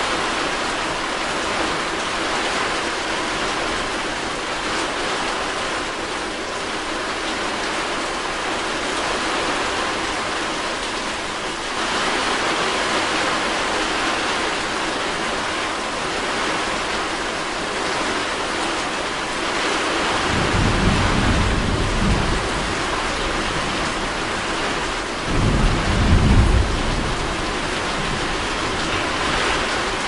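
Steady rain falling at night, growing heavier about twelve seconds in. Two low rumbles of thunder come through it, the second, louder one near the end.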